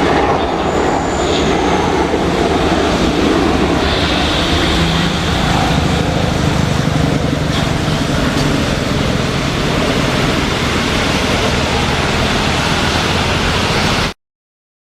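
Boeing 737-800 jet engines at takeoff power, a loud steady roar mixed with heavy rain; it cuts off suddenly about 14 seconds in.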